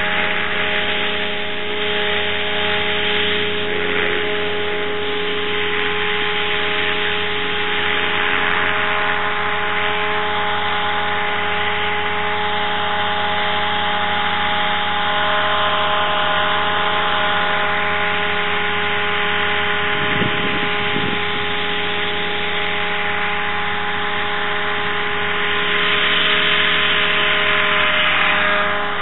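An engine running steadily at an unchanging speed, its hum holding the same pitch throughout.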